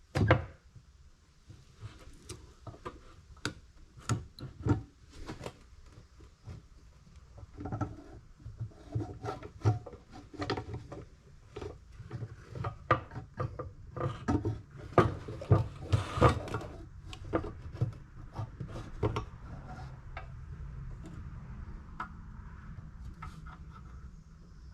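Scattered clicks, taps and light clatter of small engine parts being handled and set down as a Briggs & Stratton lawn-engine carburetor is taken apart on the bench.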